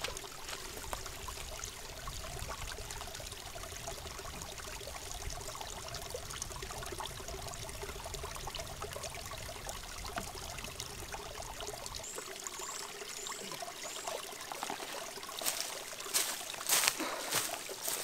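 A small forest spring trickling and splashing over wood as water pours into a plastic bottle held under the flow. Near the end, louder sharp rustles and knocks.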